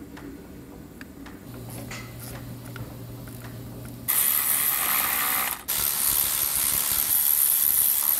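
Hand ratchet driving bolts home, clicking fast and loudly from about halfway through, with one brief pause. Before that there are only faint clicks and knocks of tool work.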